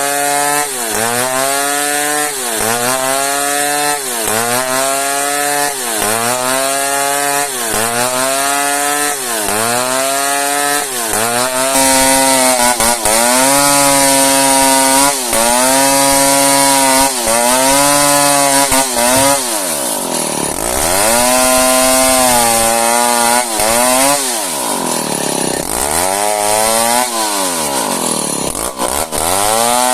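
Chainsaw cutting into an old merbau hardwood log, its engine pitch rising and falling in a steady cycle about every second and a half. After about twenty seconds the dips in pitch become deeper and slower.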